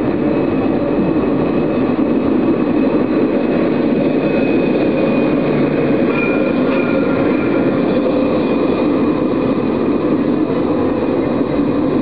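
Alstom Citadis low-floor electric tram passing on street track: a steady running rumble with a faint high whine that is strongest as it goes by, about halfway through.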